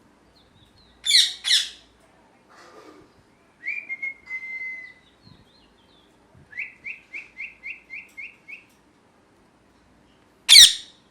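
Pet ringneck parrot calling: two loud, harsh screeches about a second in, then a short whistle, a quick run of about eight rising chirps, and another loud screech near the end.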